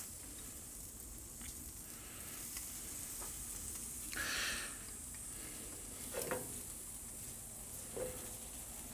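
Faint sizzling of ribs over hot charcoal as black-currant glaze is brushed on, with a short swell of hiss about four seconds in and two light knocks near the end.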